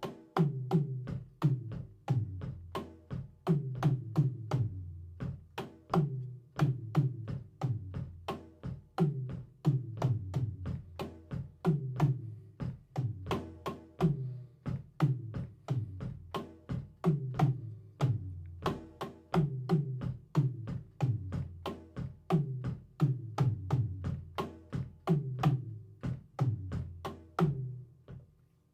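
Drum kit played by a beginner drummer, working on a syncopated groove: a steady repeating pattern of quick sharp strokes over low, booming drum hits.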